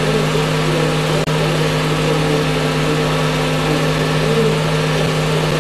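Steady motor whirr and hum of a film projector running, with one faint click about a second in.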